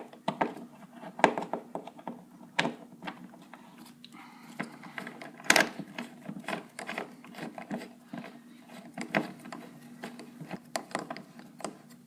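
Irregular clicks, taps and knocks of hand tools working at the screws of a metal bracket to loosen them, with a longer scraping burst about five and a half seconds in, over a faint steady hum.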